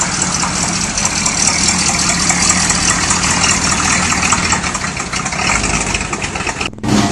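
A first-generation Chevrolet Camaro's engine running steadily at low speed as the car rolls slowly past, cutting off suddenly near the end.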